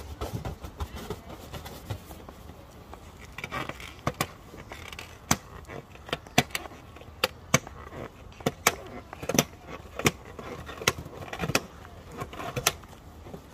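Pink rubber balloon being gripped and bitten by a macaque, giving sharp, irregular squeaks and clicks of stretched rubber. They start a few seconds in and come about once a second, some in quick pairs.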